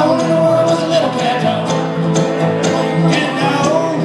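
Live acoustic bluegrass-style band playing, with mandolin, upright bass and acoustic guitar over a steady strummed beat of about two strokes a second.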